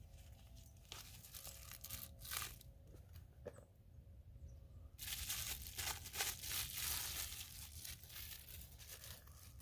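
A nylon knife sheath being handled: scattered short rustles, then a louder, longer stretch of rustling that starts about halfway through and lasts about three seconds.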